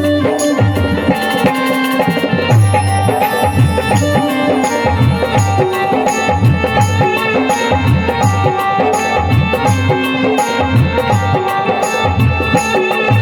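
Instrumental interlude of a Hindi devotional song: hand drums keep a steady rhythm under melody instruments.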